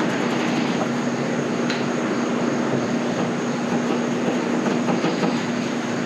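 Steady mechanical drone with a constant hum.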